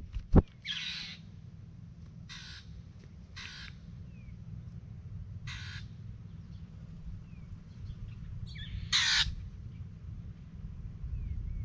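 Crow cawing in the background: five short harsh caws spaced one to three seconds apart, the loudest about nine seconds in, with a few faint chirps between them. Two sharp knocks come right at the start, over a steady low rumble.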